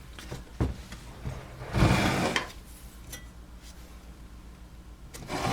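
Handling noises on a workbench: a couple of light clicks, then a short scraping shuffle about two seconds in, over a low steady hum.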